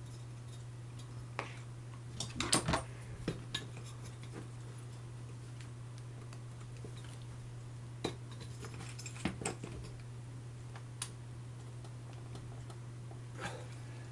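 Small metal clicks and clinks of a screwdriver and small metal parts being handled during assembly, with a cluster of louder knocks about two and a half seconds in and more about nine seconds in, over a steady low hum.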